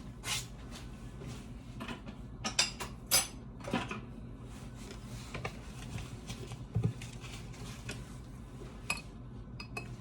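Scattered light clinks and taps of kitchen utensils against dishes, with a small cluster about two and a half to four seconds in, over a low steady hum.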